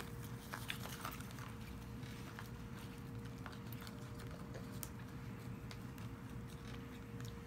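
Quiet hospital-room background: a steady low hum with a faint steady tone, and scattered faint small clicks.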